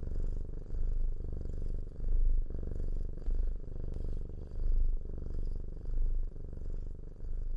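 Domestic cat purring close up, a low steady rumble that swells and eases with each breath, about every second and a half.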